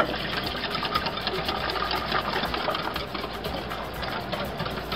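Handheld electric whisk running steadily, its wire whisk beating a milk and egg custard mixture in a glass bowl as milk is poured in.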